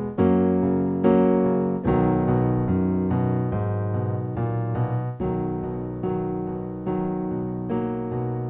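Piano music: slow chords struck about once a second, each ringing and fading before the next.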